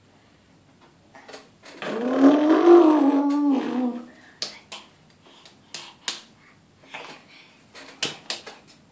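A run of sharp wet slaps from a toddler clapping foamy hands and slapping at bath water, about ten over the last four seconds. Before them, about two seconds in, comes a drawn-out voice sound that rises and falls, louder than the slaps.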